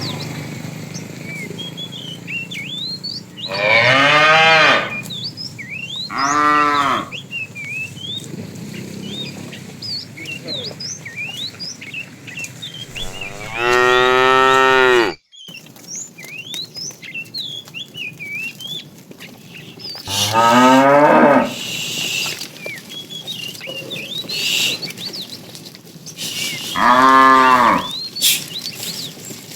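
Cattle mooing: five loud moos several seconds apart, the middle one the longest and ending abruptly. Short high chirps are heard between them.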